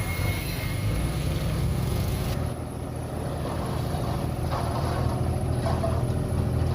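Diesel engines of heavy earthmoving machinery running steadily with a low drone. The hiss above it drops away suddenly about two and a half seconds in.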